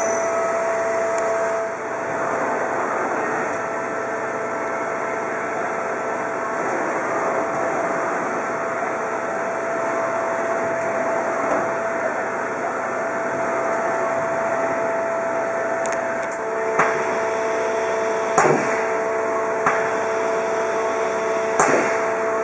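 Hardinge Cobra 65 CNC lathe running with its spindle stopped, a steady machine hum with held tones. About three quarters of the way in, a second tone joins and four sharp metallic clunks come a second or two apart.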